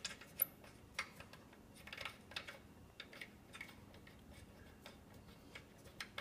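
Faint, irregular small clicks as screws are undone by hand from a stage light's lamp housing. The sharpest click comes about half a second in.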